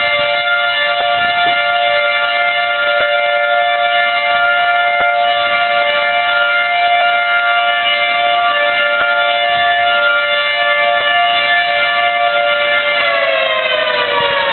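Outdoor tornado warning siren sounding a steady, chord-like wail, then winding down in pitch near the end.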